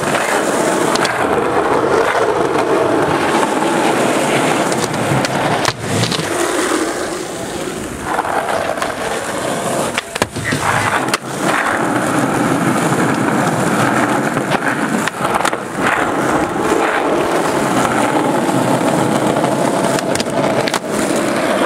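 Skateboard wheels rolling on concrete, with several sharp clacks of the board popping and landing.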